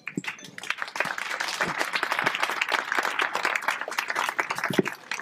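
Audience applauding, many hands clapping at once; it starts suddenly and swells within the first second.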